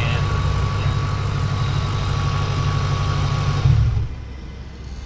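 2007 Mustang GT's 4.6-litre V8 idling steadily, freshly refilled with 5W-20 oil, then shut off about four seconds in with a brief surge as it stops.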